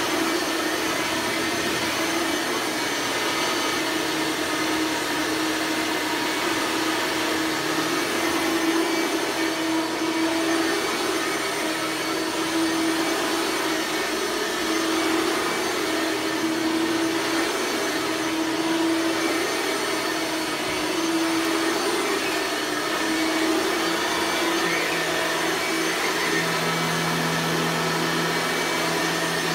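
1998 Bissell soft-bag vacuum cleaner with a 9-amp motor running steadily: an even rush of air over a steady motor hum. A second, lower hum tone comes in near the end.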